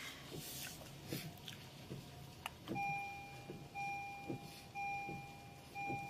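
An electronic two-tone warning beep that starts a little under three seconds in and repeats about once a second, each beep nearly a second long, like a vehicle's warning chime. Before it come a few scattered clicks.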